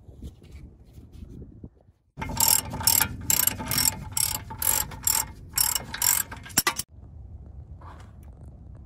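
Hand ratchet wrench clicking in quick repeated strokes, about two to three a second, as a brake caliper is bolted back onto the hub. The strokes start about two seconds in and stop abruptly near the end.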